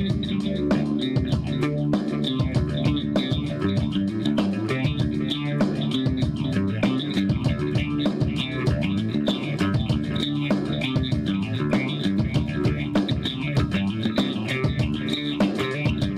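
Background music: guitar-driven instrumental with bass and a steady beat.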